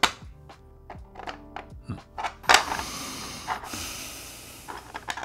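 3D-printed plastic puzzle pieces knocking and clicking against each other and the plastic tray as they are shifted into place, over background music. A louder burst of noise comes about two and a half seconds in and fades out over the next two seconds.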